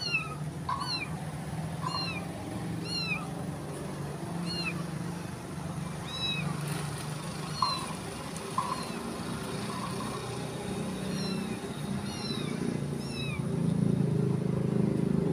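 Hungry street kittens mewing over and over while being fed: short, high-pitched mews, roughly one a second, fewer near the end.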